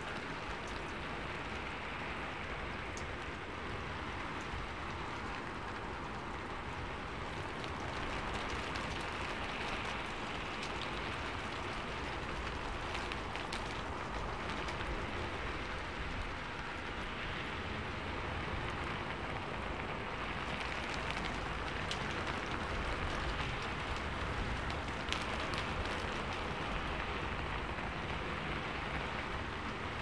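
Steady rain falling, an even hiss with scattered sharper drop ticks.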